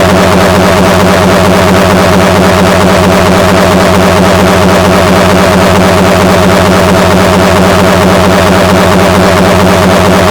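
Very loud, heavily distorted electronic music: one steady buzzing drone with a fast repeating pattern over it.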